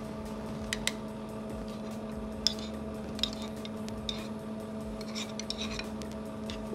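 Small ceramic sauce bowls clinking and tapping as they are handled, while wasabi yuzu sauce is poured over blue cheese. There are a few sharp clicks, the loudest about two and a half seconds in, and a cluster of light ticks near the end, over a steady background hum.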